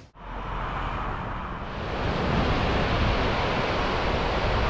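Steady rushing noise of wind on the microphone over the whitewater rapids of the Niagara River far below. It cuts in after a brief gap and grows louder about two seconds in.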